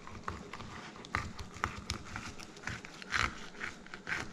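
Filleting knife cutting along the spine of a redfin perch on a wooden chopping board: irregular small clicks and scrapes as the blade rides over the backbone, with a louder scrape about three seconds in.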